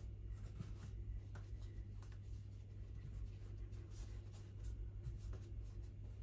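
Fingertips pressing and dimpling floured pizza dough on a countertop: faint, irregular rubbing and patting sounds over a steady low hum.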